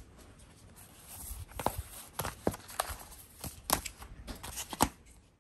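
Phone-accessory packaging handled by hand: cardboard boxes and a plastic-bagged case crinkling and tapping on a wooden desk, a string of sharp taps and knocks with the loudest near the end.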